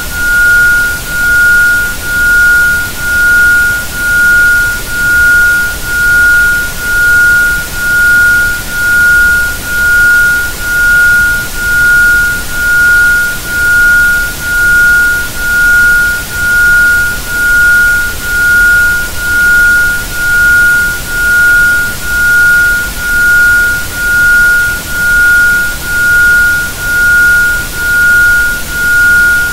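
Isochronic tone: a pure tone at about 1430 Hz pulsing on and off about once a second, over a steady background hiss of noise.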